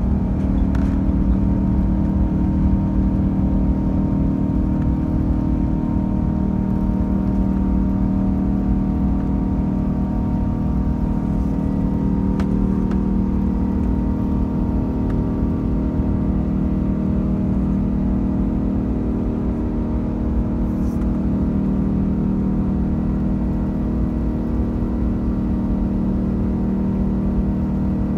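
Cabin noise of an Airbus A380-861 with its Engine Alliance GP7200 turbofans at high power during takeoff and climb: a steady drone with a strong low hum that holds even throughout.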